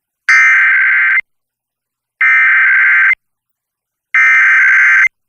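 Emergency Alert System SAME header: three one-second bursts of buzzing two-tone digital data, about a second apart. This is the coded header that opens an EAS alert over the radio, here for a required monthly test.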